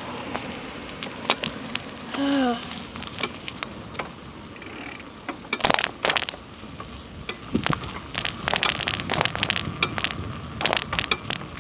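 Bicycle rolling along a concrete sidewalk: irregular crackling and sharp clicks from the tyres running over twigs, dry leaves and slab cracks, denser in the second half. A short pitched sound with falling pitch comes about two seconds in.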